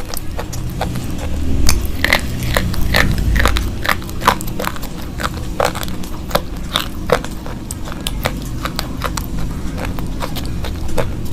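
Slate pencils being bitten and chewed close to the microphone: sharp, irregular crunches and snaps, several a second.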